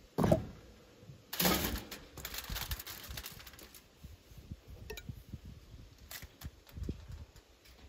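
Kitchen handling noises during meal preparation: a knock at the start, a short louder scraping rush about a second and a half in, then scattered light clinks and ticks of utensils and dishes.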